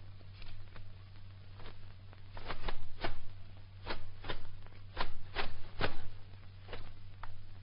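About ten sharp slaps and thuds in quick succession, loudest through the middle: kicks landing on the groin of a man braced in a horse stance. A steady low hum runs underneath.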